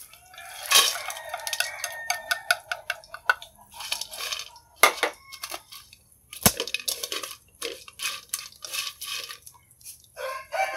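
Fried tofu strips tipped from a plate into a wok and turned with wooden chopsticks: a run of clicks, clatters and knocks against the pan, one sharp knock about two-thirds through. A rooster crows in the background about a second in and again near the end.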